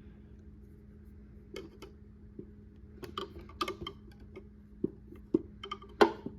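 Pliers being handled and set down: scattered sharp metal clicks and clinks starting about a second and a half in, the loudest near the end, over a steady low hum.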